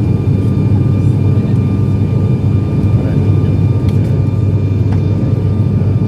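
Airliner engines at high power during take-off, heard from inside the passenger cabin: a loud, steady noise with a few thin steady whines above it.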